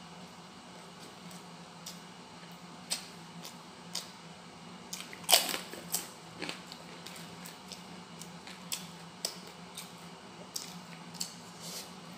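A person eating fried fish and rice by hand close to the microphone: chewing and crunching, with scattered sharp mouth clicks, the loudest about five seconds in. A low steady hum runs underneath.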